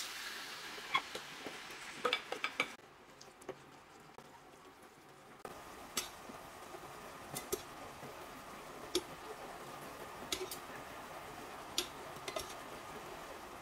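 Marinated duck slices sizzling in an enamelled skillet as they are stir-fried, with scattered sharp clicks of metal tongs and scissors against the pan.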